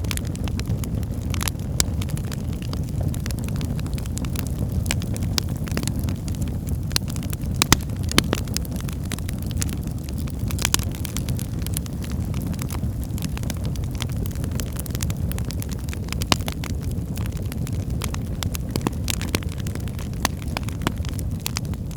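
Wood fire burning in a fireplace: a steady low rumble of flames with frequent crackles and pops, a few louder pops about eight seconds in and near sixteen seconds.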